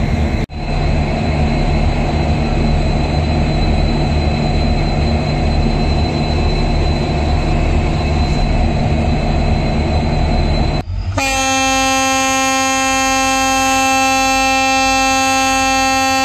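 WDP4-class diesel-electric locomotives idling at close range, a steady low engine rumble. About eleven seconds in, a diesel locomotive's air horn sounds one long, steady multi-tone blast.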